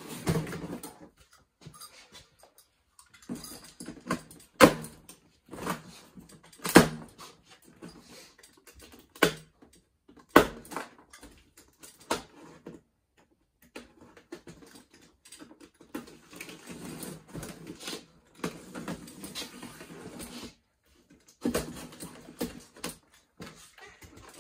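Unpacking a large cardboard box strapped with plastic packing straps. There are several sharp snaps and clicks as the straps are cut and pulled free, then cardboard rustling and scraping as the box is handled and opened.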